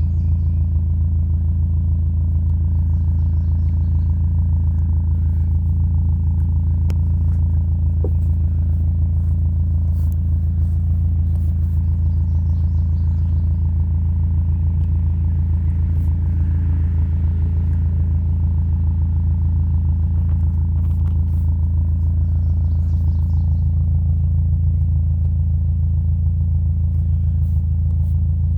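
Audi TT 225 Quattro roadster's 1.8-litre turbocharged four-cylinder running, a steady low rumble with an even hum that does not change.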